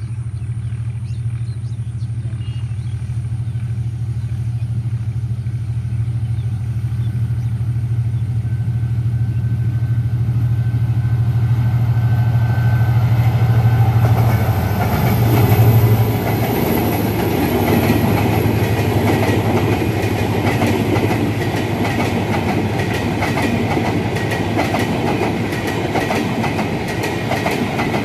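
EMD GT42AC diesel-electric locomotive approaching and passing, its low engine drone growing louder to a peak about halfway through. The passenger coaches then roll by with a steady rush and a rhythmic clickety-clack of wheels over the rail joints.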